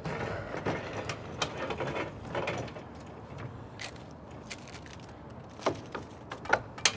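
Street cleaner's wheeled cart rattling and clattering as it is pushed along, with scattered sharp clicks and knocks over a steady low rumble.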